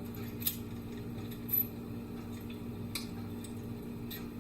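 Small metal clicks and clinks of Ruger SR1911 Commander pistol parts being handled and fitted together during reassembly: four or five separate sharp clicks over a steady low hum.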